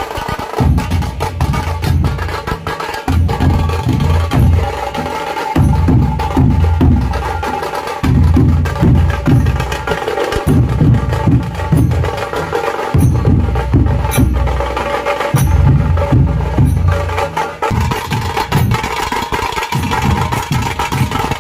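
Nashik dhol-tasha ensemble playing: fast, heavy strokes on the big barrel dhols come in loud surges with brief breaks, under sharp, cracking stick hits on the tasha drums.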